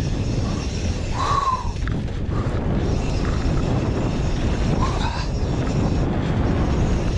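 Wind buffeting the action-camera microphone and tyres rolling over loose dirt as a mountain bike descends a downhill trail, a steady low rumble, with a brief squeak about a second in.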